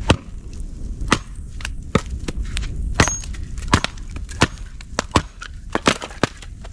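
Bonfire of old mattresses and pillows burning, crackling with sharp, irregular pops and snaps over a low steady rumble.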